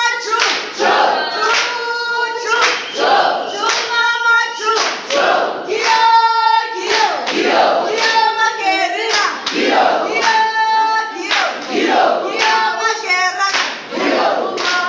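A group of people singing a song together, with hand clapping to the beat about once a second.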